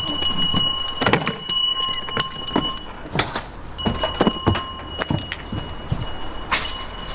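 Footsteps and knocks as a tuba and a case are carried up metal steps into a wooden caravan, with the brass instrument and case bumping, over a steady low hum.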